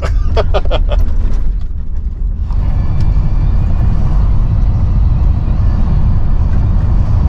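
Road noise inside a moving car: a steady low rumble of engine and tyres, with a rushing hiss of tyres on the road that grows in about two seconds in. A few short sharp sounds come in quick succession in the first second.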